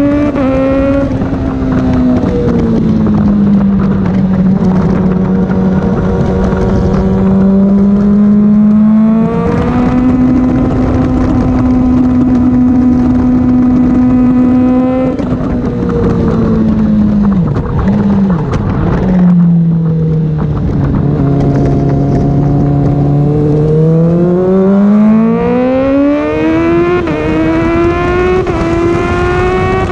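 Honda CBR600RR inline-four engine running hard on track, under a steady rush of wind noise. Its pitch holds through the straights, drops and dips around the middle as the bike slows and changes gear, then climbs steadily near the end under acceleration.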